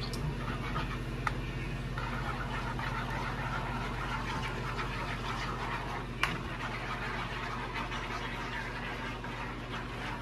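Food cooking in a skillet and a pot on a gas stove: a steady hiss over a low hum, with a couple of sharp clicks of a utensil against the pan, about a second in and about six seconds in.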